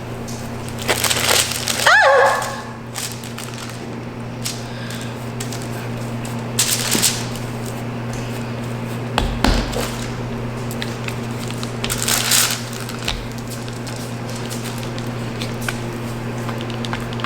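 Rolling pin working a stiff gluten-free dough on the counter, in several short scraping, rolling passes. A brief squeak comes about two seconds in and a dull knock near the middle, over a steady low hum.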